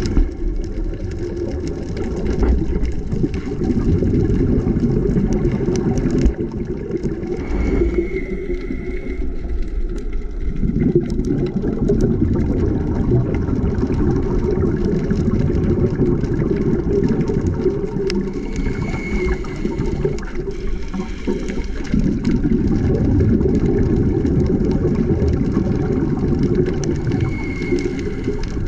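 A scuba diver's breathing heard underwater through the camera housing: long stretches of low rumbling from exhaled bubbles, broken about every ten seconds by a short, thin inhalation hiss from the regulator.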